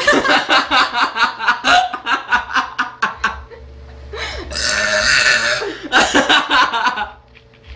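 A girl burping loudly: a long, rattling burp over the first three seconds, then a further burst of burping near the end.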